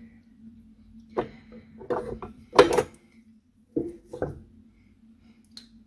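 Cutlery and kitchenware being handled: a series of short knocks and clatters, the loudest about two and a half seconds in, as a fork is fetched to taste the dish.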